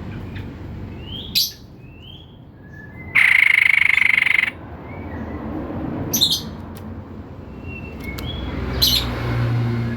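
White-breasted babbler (tepus dada putih) calling: short rising whistles, with a loud, fast, buzzy trill lasting a little over a second about three seconds in.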